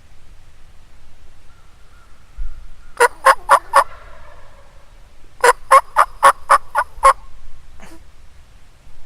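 Turkey yelping in two loud runs of sharp notes, about four a second: four notes about three seconds in, then seven more a couple of seconds later.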